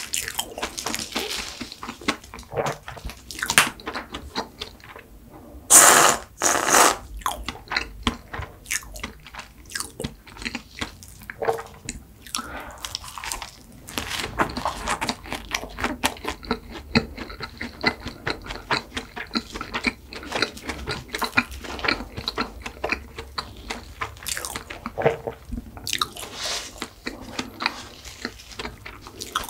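Close-up eating of a flaky layered Mont Blanc pastry with a sugar-glazed top: crisp crunching and chewing, with two loud crunches about six seconds in. The pastry's flaky layers crackle as it is torn apart by hand.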